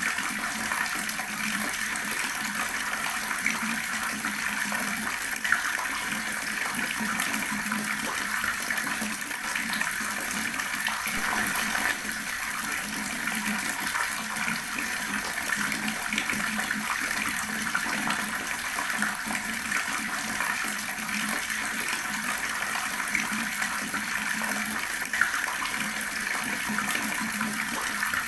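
Water tap running steadily, the stream splashing and gurgling as it falls.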